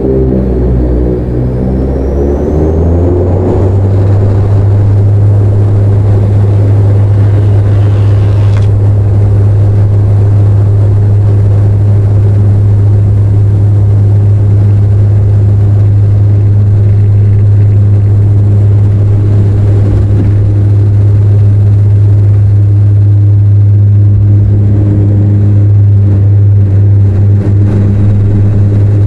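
Bombardier Dash 8 Q400's Pratt & Whitney PW150A turboprops and six-blade propellers at takeoff power, heard inside the cabin. The loud drone rises in pitch over the first few seconds as the engines spool up, then holds as a steady propeller hum through the takeoff roll and liftoff.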